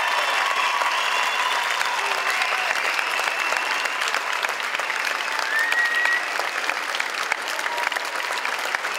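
Audience applauding steadily, a dense sustained clapping that greets the performers' bow.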